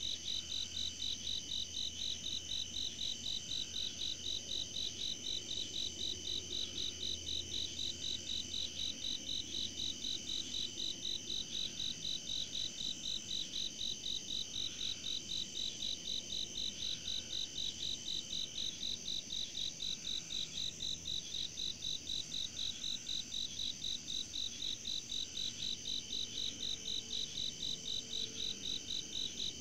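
Night chorus of crickets and other insects: a steady high trill with a fast, even pulsing chirp over it.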